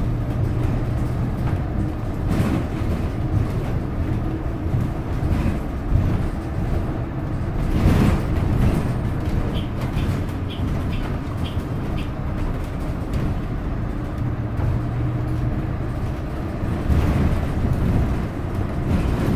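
Ride noise inside a moving San Francisco Muni city bus: a steady drivetrain hum and road rumble, with a louder clatter about eight seconds in.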